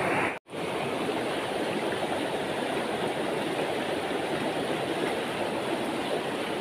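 Shallow, rocky river flowing fast over stones: a steady rushing of water. The sound cuts out for a moment about half a second in, then runs on unchanged.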